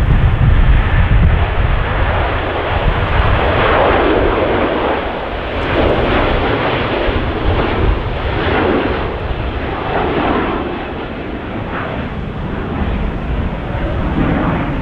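Jet airliner engines at take-off power: a loud roar, heaviest in the low rumble at first, that swells and eases in waves as the aircraft climbs away. Strong wind buffets the microphone.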